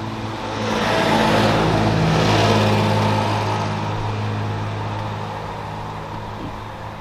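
A car engine running close by, its sound swelling to a peak about two seconds in and then fading away, as a car passes.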